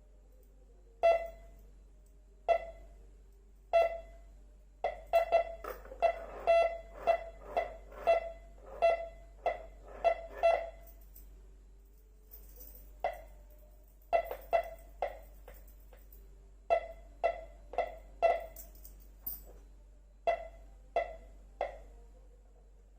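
MD-4030 metal detector giving short, pitched beeps as metal passes over its search coil. First come three single beeps about a second and a half apart, then a fast run of roughly two beeps a second. After a pause of about two seconds, a further string of beeps follows.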